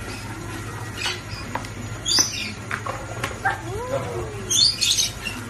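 Lovebirds chirping in short, high bursts, loudest about two seconds in and again near the end, among several sharp taps on a tabletop. A brief gliding tone rises and falls in the middle.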